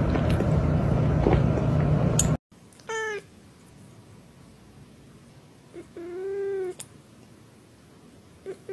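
A loud, steady rushing noise with a few faint clicks cuts off abruptly. Then a tabby cat meows: a short falling meow, a longer meow with a rising-then-falling pitch about three seconds later, and a brief chirp near the end.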